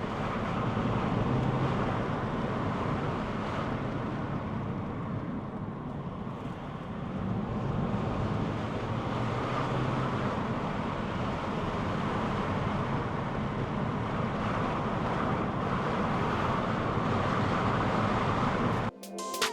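Volvo C30 D4 on the move: a steady rumble of road, tyre and wind noise with the engine running. Just before the end it cuts off suddenly into music.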